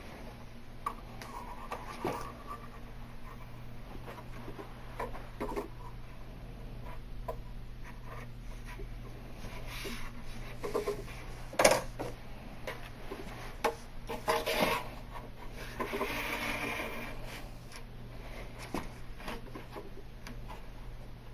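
Pocket knife shaving excess peel-and-stick edge banding off a panel corner: irregular short scrapes and clicks of the blade on the plastic, with a few louder strokes and a longer stretch of rubbing about two thirds of the way through. A steady low hum runs underneath.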